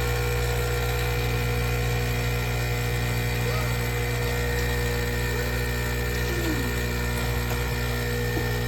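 Nespresso Pixie espresso machine's pump buzzing steadily without stopping. It was started on the short-cup setting and fails to cut off: this unit does not stop at the programmed volume.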